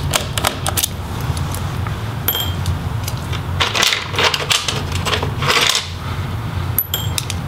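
Small metal laptop screws clicking and clinking as they are backed out of a motherboard with a Phillips screwdriver and set down, with two short metallic rings about two seconds in and near the end, over a steady low hum.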